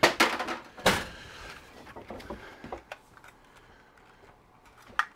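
Handling knocks and clicks from the assembled plastic battery-adapter case: two loud knocks at the start and about a second in, then light scattered clicks and one sharper click near the end.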